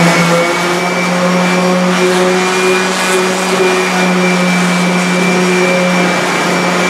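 A workshop electric motor running steadily: a loud, even rush with a low hum and a faint high whine under it.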